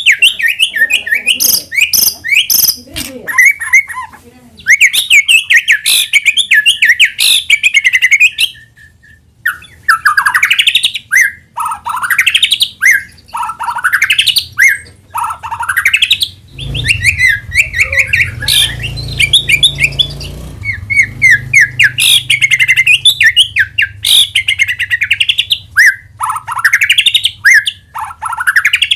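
White-rumped shama (murai batu) singing a long, varied song used as a lure song. It runs in rapid trills and chattering phrases, broken by repeated rising whistled sweeps. A low hum sits under the song midway.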